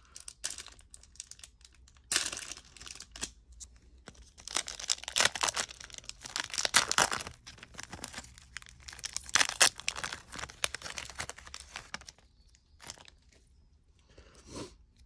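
Foil wrapper of a trading-card pack crinkling and tearing as it is worked open, in irregular spurts that are loudest in the middle. It thins to a few light rustles near the end.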